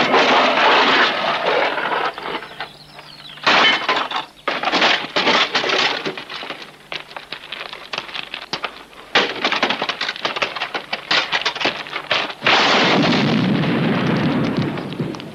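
Car crash sound effects: a car scraping along on its side, then a long run of irregular crashing metal impacts. About twelve seconds in comes an explosion whose heavy low rumble fades out.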